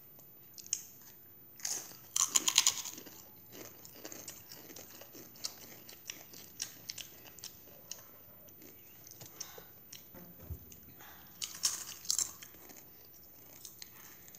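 Crunchy Doritos tortilla chips being bitten and chewed. There is a loud burst of crunching about two seconds in, another later on, and lighter crackling in between.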